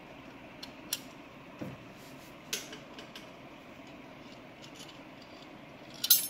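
Light metallic clicks of parts being handled while the Norton Commando's outer gearbox cover and its spring are lined up for refitting. Near the end comes a loud clatter as a part is dropped.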